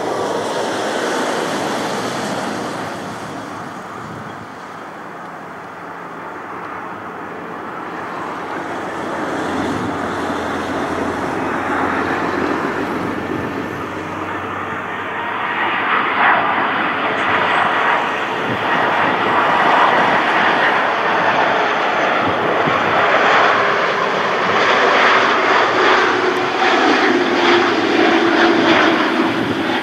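Airbus A330 jet airliner on final approach with gear down. The rushing noise and whine of its two turbofan engines grow steadily louder as it comes close, and a lower whine drops in pitch near the end as it passes by.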